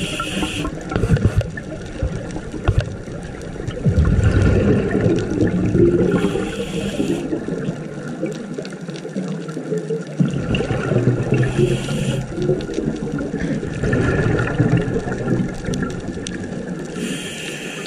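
A diver breathing through a scuba regulator underwater: a short hiss on each inhale, then a longer rush of exhaled bubbles, about one breath every six seconds.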